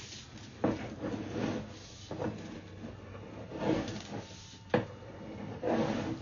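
Irregular knocks and rattles, about five in six seconds, as a sewer inspection camera's push cable is pulled back through the pipe; the sharpest knock comes about three-quarters through.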